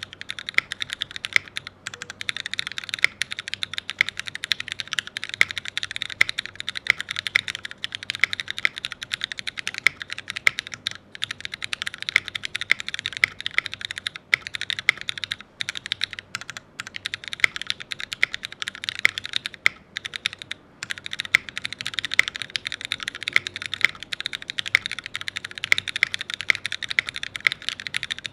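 Fast, continuous typing on an ORCA65 custom mechanical keyboard: a dense patter of key clicks that starts abruptly and is broken only by a few short pauses.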